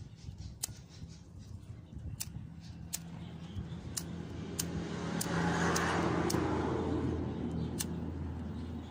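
About ten sharp clicks of a flint lighter's spark wheel being struck over and over, while a passing vehicle's engine swells and fades, loudest around the middle.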